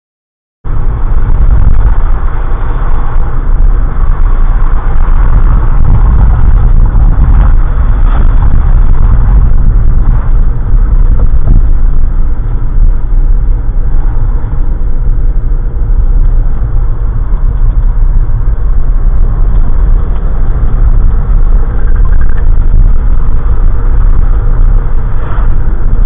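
Steady low rumble of a car driving, its road and engine noise picked up by a dashcam inside the cabin. It cuts in about half a second in, after a brief dropout.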